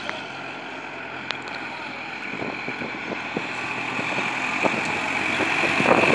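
Tractor diesel engines running, growing steadily louder as the tractors approach.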